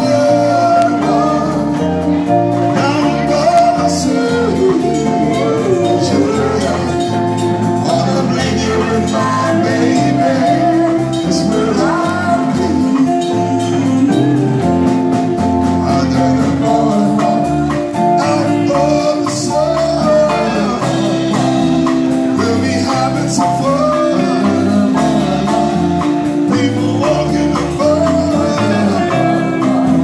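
A live band playing with a male and a female singer singing into microphones, backed by guitar, keyboard and drums.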